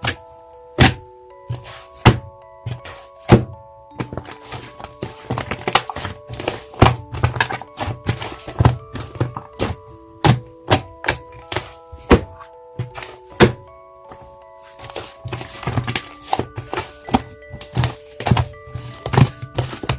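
Thick slime being pressed and squished by hand, giving repeated thunks and crackly pops, roughly one or two a second. Soft background music plays under it.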